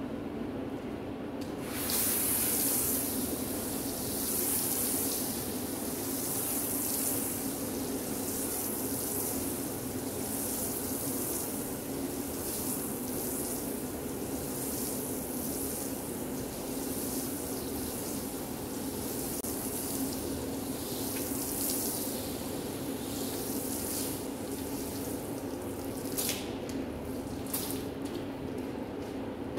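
Soapy cleaning solution poured from a plastic container and splashing onto a wet carpet. The splashing starts about two seconds in and comes in surges every couple of seconds, over a steady low hum.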